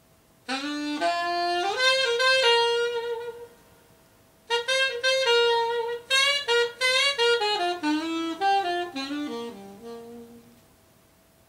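Solo saxophone playing two melodic phrases: a short one starting about half a second in, then after a brief pause a longer one whose notes step downward and fade away near the end.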